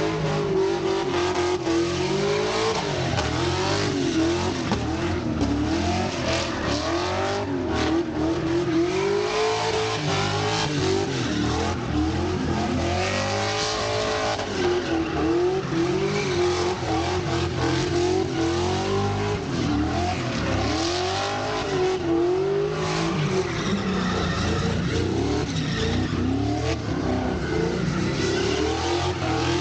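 Two cars drifting in circles, their engines revving up and down in a repeated rising and falling pitch as the drivers work the throttle, over the steady screech and hiss of spinning, sliding tyres.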